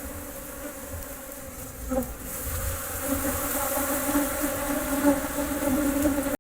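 An insect buzzing: a steady low hum that grows a little stronger about halfway through.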